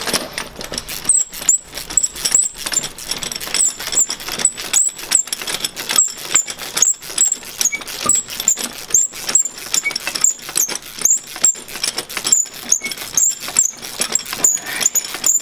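Hand ratchet wrench being cranked quickly on the bolts of a coil-spring compressor fitted to a car strut: a fast, even run of clicks, about three strokes a second.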